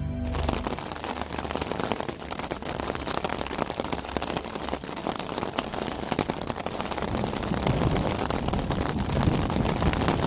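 Heavy rain drumming on a Cuben fibre (Dyneema) Tarptent shelter, a dense patter of drops striking the taut fabric, growing heavier near the end.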